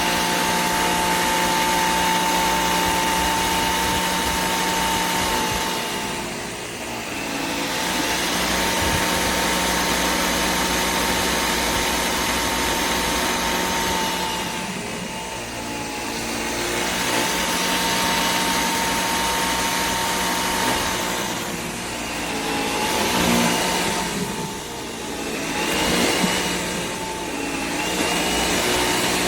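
Bissell Air Ram cordless stick vacuum running, a steady motor whine whose level dips briefly and returns several times.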